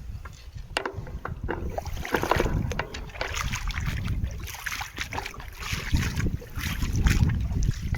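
Shallow river water sloshing and splashing irregularly, with wind rumbling on the microphone.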